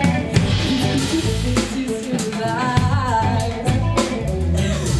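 Pop song with guitar and drum kit, a voice singing a held, sliding line over the accompaniment.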